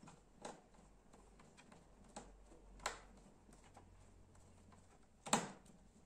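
Light clicks and taps of a small screwdriver and screws on a laptop's plastic bottom case while the case screws are driven in, a few scattered clicks with a sharper knock a little after five seconds in.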